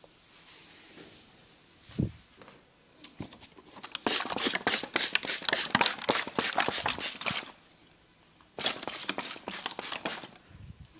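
A barber's hands working fast on a person's head and hair in a head massage: two runs of rapid, crisp rubbing and scratching strokes, the first about three and a half seconds long, the second about two seconds, after a dull low thump about two seconds in.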